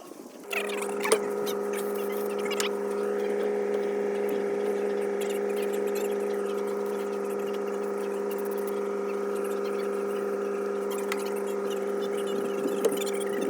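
A machine starts up about half a second in and runs with a steady, even hum, with a few light clicks over it.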